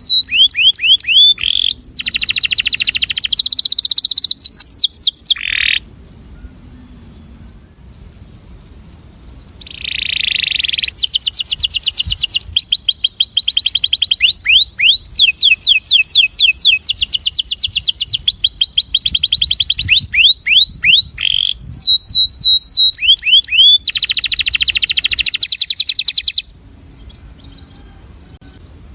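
Male canary singing its courtship song: fast trills of quickly repeated falling notes, phrase after phrase. There is a pause of a few seconds about a quarter of the way in and another near the end.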